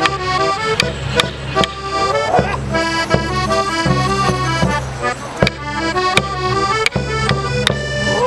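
Accordion playing a lively folk dance tune for border morris, over a bass drone, with sharp knocks keeping a steady beat a little more than once a second.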